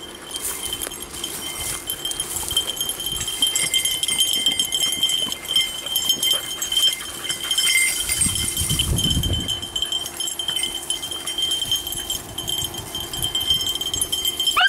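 Beagles baying at a distance, a continuous wavering chorus of hound voices. A low rumble comes through briefly about eight seconds in.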